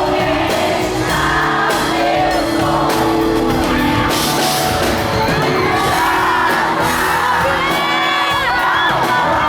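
A live pop-rock band song with lead singing, played loud through a large hall, with whoops and shouts mixed in.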